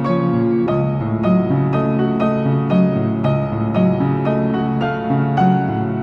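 Background music led by piano, a steady run of notes about two a second over held low chords.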